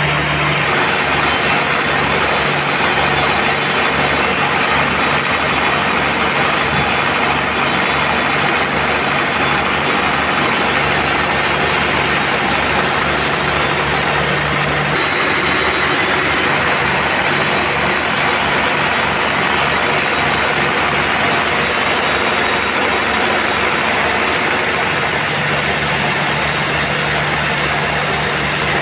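Sawmill band saw running through a teak log, a dense steady hiss of cutting over the drone of the mill's motor, with no pause.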